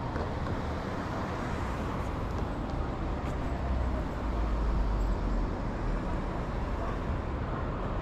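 Street traffic: a steady rumble of passing vehicles, swelling a little about halfway through.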